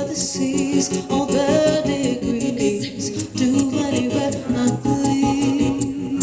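A live band playing with a singer, with a steady beat.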